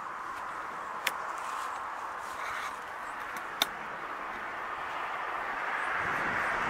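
Steady hiss of distant road traffic that swells toward the end as a vehicle approaches, with two short sharp clicks, about a second in and again about three and a half seconds in.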